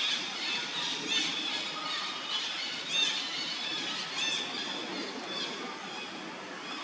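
Baby monkey squealing: a run of short, high-pitched squeals that rise and fall, loudest about three seconds in and thinning out near the end.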